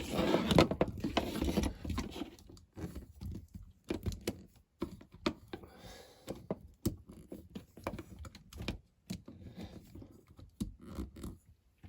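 Small plastic McDonald's Disneyland Paris parade toys being handled and linked together: irregular light clicks and taps, busier in the first couple of seconds.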